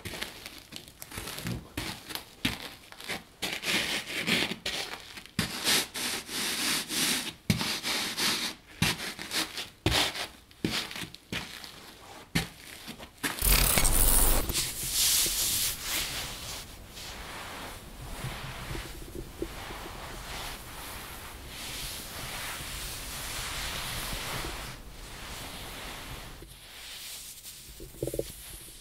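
Shoes stepping and scuffing on coffee grounds spread over a wooden board padded with a blanket, a gritty crunch that stands in for footsteps on a dirty floor. About 13 seconds in comes a short loud burst, then the steady rubbing of a cotton hoodie sleeve.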